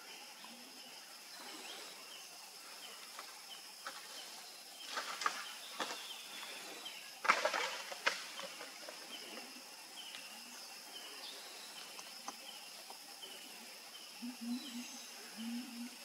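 Forest ambience: a steady high insect drone with small chirps repeating every second or so, broken by a few short crackling bursts about five and seven seconds in, and two low short calls near the end.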